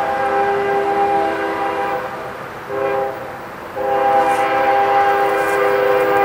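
Diesel locomotive air horn sounding the grade-crossing signal as the ES40DC-led train approaches: a long chord blast that trails off, a short blast about two-thirds of the way through the first half, then another long blast starting just before four seconds in.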